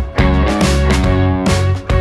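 Background music: an instrumental track led by plucked guitar, with notes struck in a steady rhythm.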